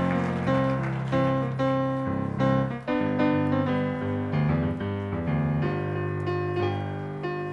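Instrumental piano music, with chords struck and left to ring in a steady rhythm.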